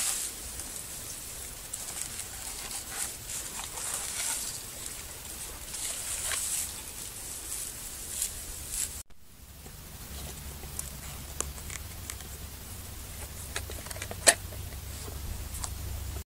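Dry pine needles and fibrous tinder rustling and crackling as they are pulled and gathered by hand. After a sudden break, light scattered clicks and handling noises follow, with one sharp click about fourteen seconds in.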